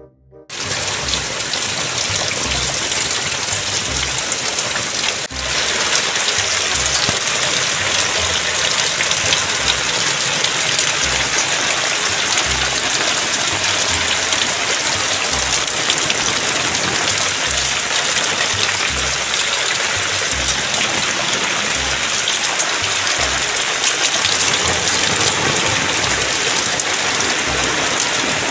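Heavy rain pouring onto metal bicycle frames and wet tiled ground: a dense, steady hiss, with a short break about five seconds in.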